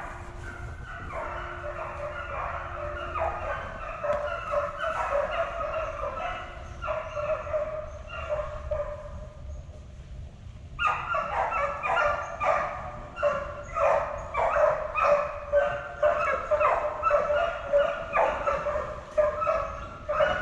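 A pack of deer hounds baying and bawling in full cry as they run a deer, many voices overlapping. The calls ease for a moment about halfway through, then come back louder and closer.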